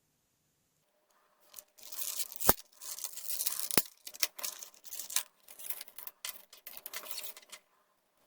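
Metal bicycle parts being handled while the rear wheel and chain come off a mountain bike: several seconds of rattling and scraping, with two sharp metallic clicks about a second apart.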